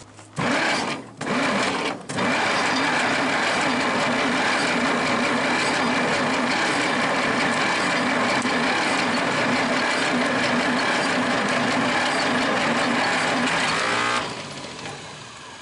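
Starter cranking a Chrysler industrial 218 flathead six that will not fire: two short cranks, then one long crank of about twelve seconds that stops near the end. The engine turns over without catching; the owner puts it down to low compression from sticking valves.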